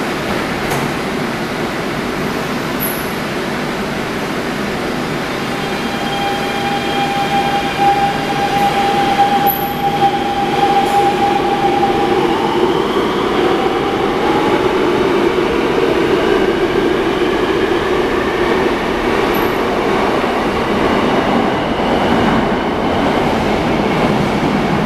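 Daegu Metro Line 1 subway train pulling out of the station: a steady rumble of wheels on rail with an electric whine that climbs in pitch as the train speeds up and away.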